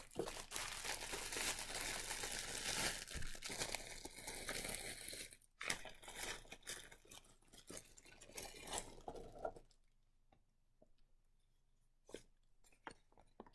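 A clear plastic bag crinkling and rustling as it is untwisted, opened and a wool roving braid pulled out. The crinkling is dense for about five seconds, then comes in scattered rustles, and it stops about ten seconds in, leaving only a few small clicks.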